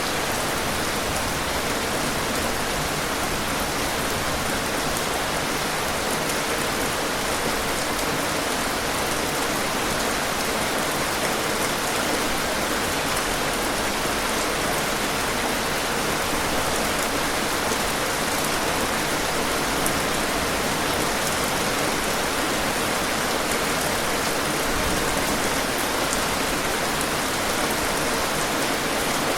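Heavy rain falling steadily, a dense, even hiss of drops with fine patter on a surface.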